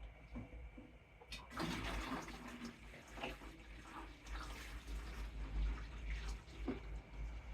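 A sharp click, then a burst of hissing, water-like noise lasting about a second and a half, followed by scattered light knocks and rustles over a steady low hum.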